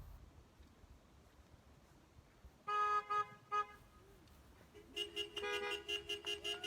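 Several car horns honking: one longer blast and two short toots about three seconds in, then many rapid overlapping toots on a few close pitches from about five seconds on.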